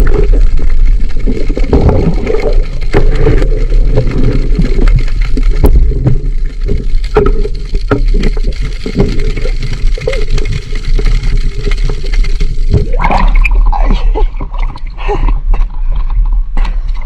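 Water gurgling and sloshing close to a spearfisher's waterproof camera while diving, with scattered knocks. About thirteen seconds in, the sound turns choppier, with sharper splashes.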